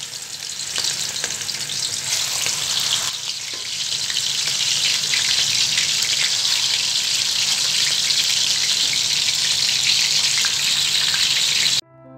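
Beef seekh kababs deep-frying in hot oil in a wok: a steady sizzle full of small crackles and pops that grows denser about three seconds in, as more kababs go into the oil. It cuts off suddenly just before the end.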